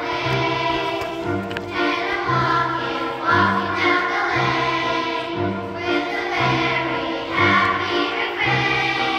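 Children's choir singing in unison over an instrumental accompaniment, with a steady beat of alternating low notes about two a second.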